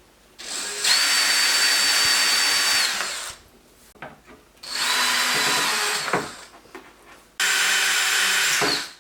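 Power drill running in three bursts, each spinning up to a steady high whine and stopping: a long one of about two and a half seconds, then two shorter ones.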